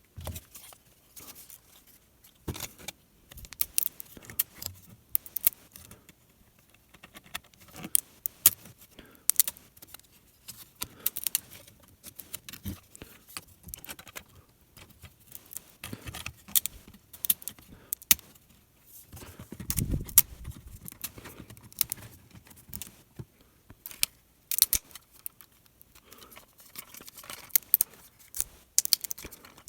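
Irregular small plastic clicks, snaps and scrapes as a 3D printer's support raft is picked and peeled off a printed part, with a dull low thump about twenty seconds in.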